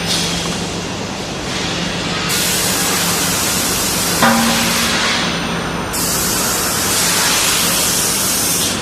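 Automatic pipe-and-profile painting machine running with a steady low hum, its spray nozzles hissing in two long spells, with a short squeak about four seconds in.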